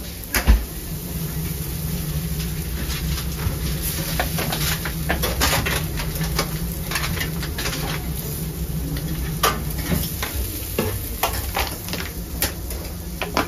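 Fish sizzling on a grill grate, with a metal spatula scraping and clinking against the grate and the metal serving plates in irregular clicks. One loud knock comes about half a second in, and a steady low hum runs underneath until near the end.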